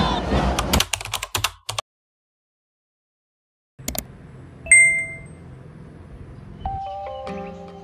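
A cheering crowd cut off abruptly, then silence, a click and a single bright ding like a subscribe-button sound effect. Soft plucked-string music begins near the end.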